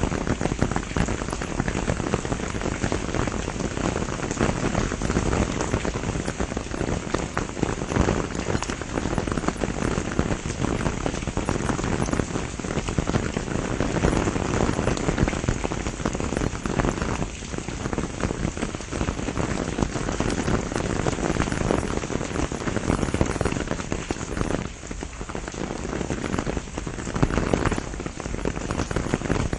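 Steady heavy rain falling on the leaves of a pomegranate tree, a dense pattering of drops that dips briefly for a moment about three-quarters of the way through.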